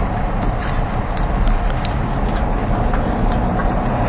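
Steady road and engine noise heard from inside a moving car, with scattered sharp taps of precipitation striking the car's body and windshield, a few each second.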